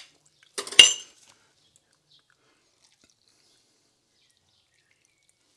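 A single clink of a glass jar about a second in, with a brief ringing, then near silence. No pouring is heard.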